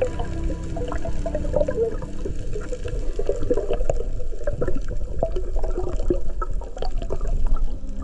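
Underwater water noise picked up by a submerged camera: a low rumble of moving water with many small clicks and pops throughout.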